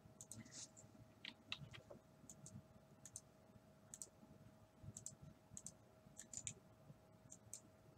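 Faint computer keyboard keystrokes, scattered taps, often in quick pairs, about one or two a second, over a faint steady hum.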